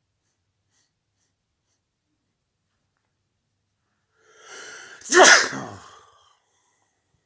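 A person's single loud sneeze: a breathy intake builds for under a second, then the sneeze bursts out about five seconds in, the voice dropping in pitch as it trails off within a second.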